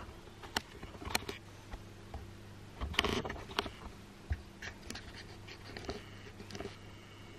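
Handling noise: scattered small clicks and knocks, with a brief cluster of clatter and rustle about three seconds in, over a faint steady low hum.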